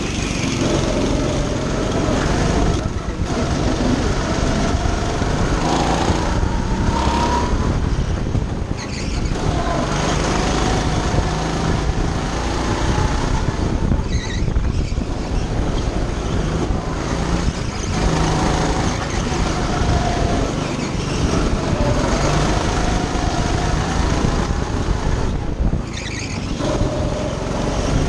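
Go-kart engine running hard on a lap, its pitch climbing and falling again and again as the driver accelerates and lifts for corners, over a steady rush of noise.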